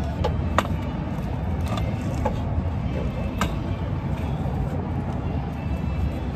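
Steady low rumble of street traffic, with about five light metallic clicks in the first few seconds as locking pliers are clamped and worked on a stuck, stripping oil-cooler bolt.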